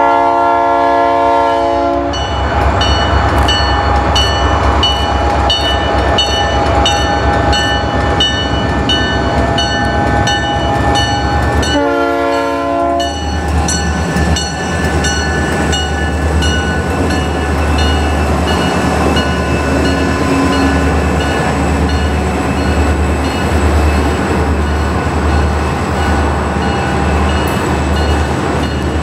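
Two EMD SD40-3 diesel locomotives passing close by, sounding a multi-note chord horn in a long blast at the start and a short one about twelve seconds in. The locomotive bell rings about twice a second, and after the second blast the engines and then the loaded hopper cars roll by with a pulsing low rumble of wheels on the rail.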